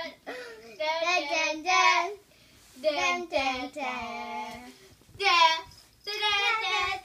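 Dachshunds play-fighting and giving high-pitched, drawn-out whining, howl-like calls: a run of about seven, each half a second to a second long, some with a wavering pitch.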